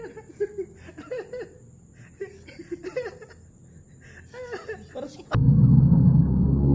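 Several men laughing heartily in short bursts, over a steady high chirring of insects. About five seconds in, a loud, deep musical boom cuts in abruptly and stays on, drowning the laughter.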